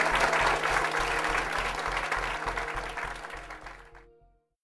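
Audience applauding over music with a steady low beat, both fading out and ending about four seconds in.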